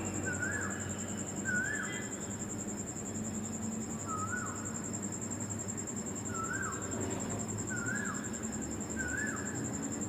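A bird giving short rising-and-falling calls, repeated about six times at uneven intervals, over a steady high-pitched whine.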